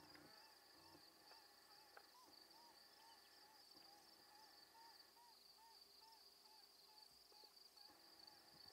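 Faint night sounds: a steady series of short tooting calls, about two to three a second, over a continuous high insect trill.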